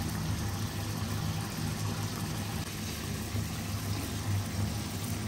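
Tomato pasta sauce simmering and bubbling in a frying pan on a gas stove, over a steady low hum.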